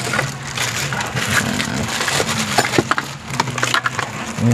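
Scattered plastic crackling and clicking as hands handle a plastic-bagged wiring harness and work a plastic trim tool at a car's dashboard panel.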